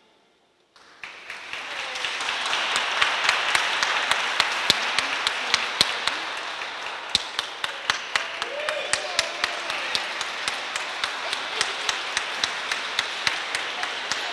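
Audience applauding at the end of a children's choir song, starting about a second in after a brief hush, with a voice or two calling out partway through.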